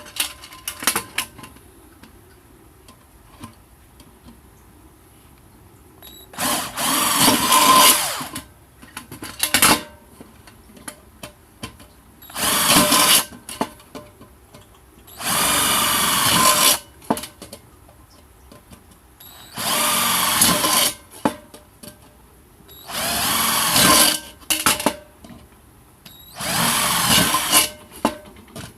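Electric drill running in six bursts of one to two seconds each, its whine sagging and rising in pitch under load. Small clicks and taps of handling are heard between the bursts.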